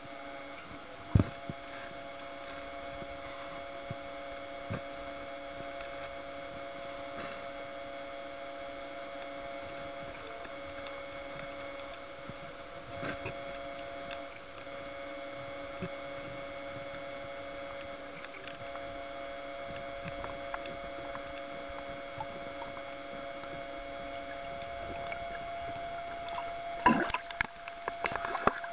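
Underwater sound recorded by a snorkeler's camera: a steady hum with a few sharp clicks and taps, the loudest about a second in. Near the end the camera breaks the surface with a burst of splashing and sloshing water.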